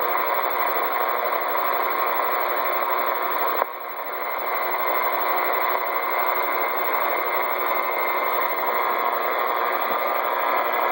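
Radio receiver static: a steady hiss of open-channel noise with no voice on it, dipping briefly about a third of the way in and cutting off abruptly at the end, as when the carrier drops and the squelch closes.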